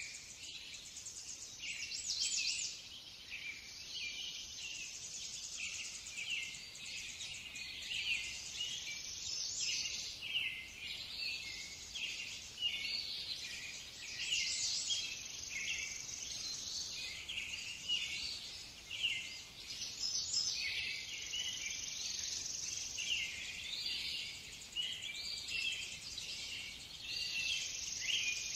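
Woodland birds chirping and singing over buzzing insects: a dense, continuous chorus of short high calls, swelling and easing every few seconds.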